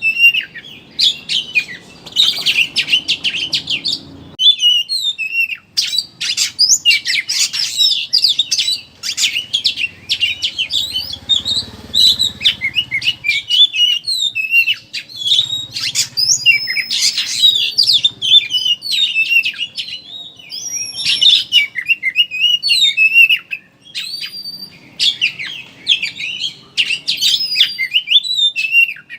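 Oriental magpie-robin (kacer) singing a rapid, unbroken chattering song of quick high chirps and whistled notes.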